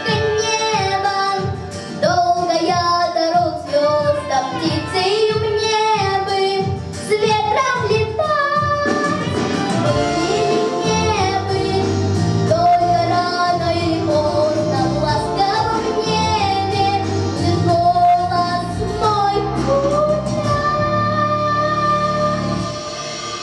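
A female voice sings a song with guitar accompaniment, holding long notes. The music begins to fade near the end.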